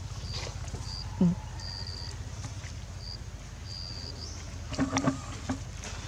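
A few brief squeaky calls from young macaques, loudest about a second in and again as a short cluster near five seconds. Under them run a steady low rumble and short high chirps repeating.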